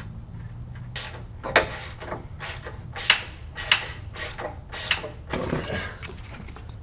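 Hand ratchet wrench tightening a nut, about nine rasping strokes a little over half a second apart, then stopping.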